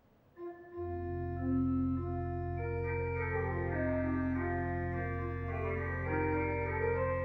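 Organ music begins about half a second in: a held low bass note under sustained chords that change slowly.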